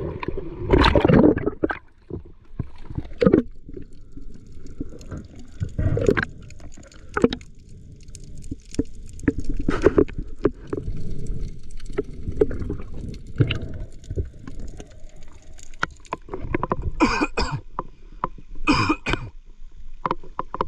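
Muffled water sloshing and gurgling around a camera in a waterproof case, with irregular, breath-like puffs from a swimmer in the sea. A few sharper puffs come near the end.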